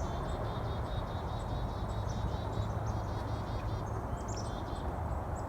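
Small birds chirping in quick, repeated high notes over a steady low rumble.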